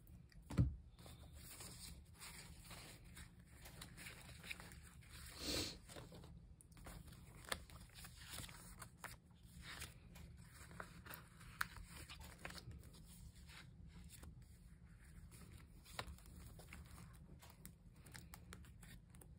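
Faint handling of paper and stickers: small rustles, peels and taps scattered throughout. There is one sharper knock about half a second in and a short louder rustle around five and a half seconds.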